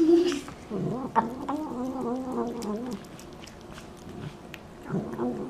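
Domestic cat making wavering, throaty murmurs while eating wet food from a saucer. The murmurs run for about two seconds, pause, and start again near the end. A short, louder steady tone sounds at the very start.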